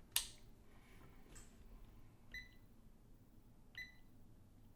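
Digital multimeter giving two short, high beeps about a second and a half apart while set to measure a capacitor's capacitance, after a sharp click right at the start.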